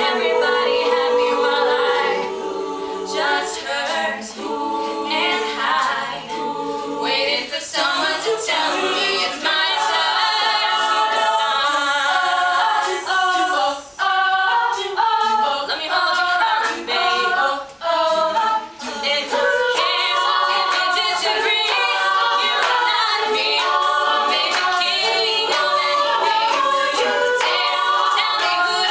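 Women's a cappella group singing live: a solo voice carried over several backing voices in close harmony, with no instruments. The singing breaks off briefly twice around the middle.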